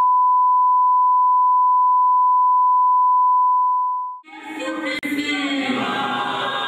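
Steady high-pitched test tone of the kind that goes with colour bars, fading out about four seconds in. Then voices singing together.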